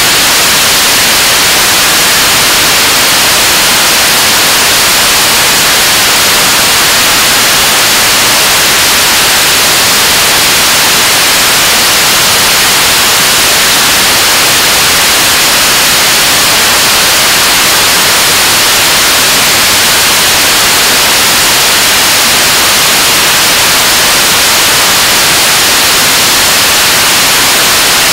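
Korean launch vehicle (KSLV-II) 7-tonne-class liquid-oxygen/kerosene rocket engine firing at steady thrust in a ground hot-fire test. A loud, unchanging rush of exhaust noise, strongest in the high pitches.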